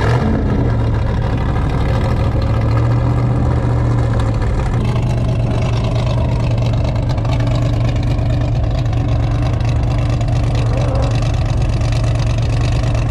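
A vehicle engine running loudly at steady, unchanging revs. It starts abruptly at the beginning.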